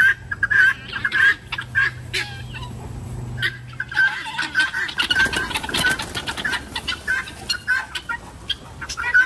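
Guinea fowl and other poultry calling in a rapid string of short, harsh, repeated notes, an agitated flock stirred up by a chasing dog, with a brief rustling scuffle around the middle.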